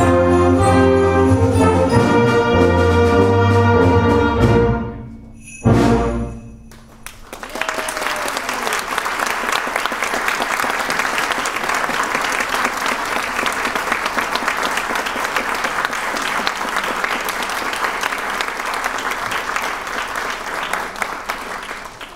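A concert band holds its final chords and ends the piece with one short, accented chord about six seconds in. The audience then applauds steadily for the rest, until the recording cuts off.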